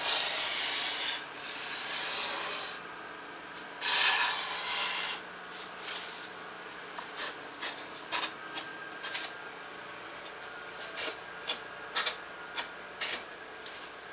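Pencil scratching along plywood as a line is traced around the edge of a wing panel. There are two long strokes in the first five seconds, then a run of short, sharp scratches.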